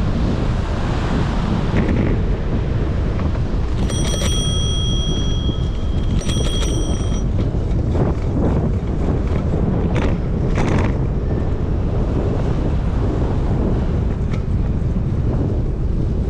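Wind rushing over the microphone of a camera on a moving bicycle, steady and loud. A bicycle bell rings twice, a few seconds in and again about two seconds later, and there are a few short knocks after that.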